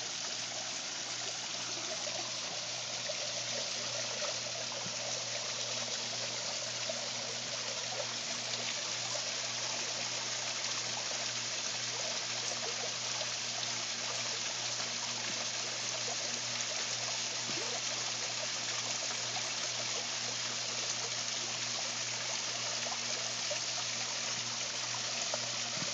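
Water falling and splashing down a lit rock waterfall into a pool, a steady, unbroken rush with a faint low hum underneath.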